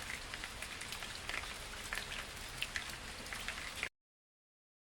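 Steady rain falling on broad garden leaves: an even hiss with many separate drop ticks and patters. It cuts off abruptly near the end into silence.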